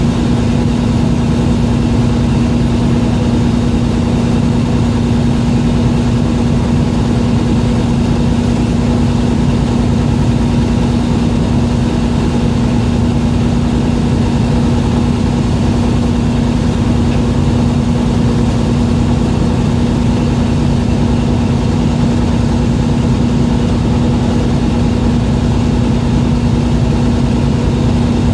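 Fishing boat's engine running steadily, a constant low hum that does not change.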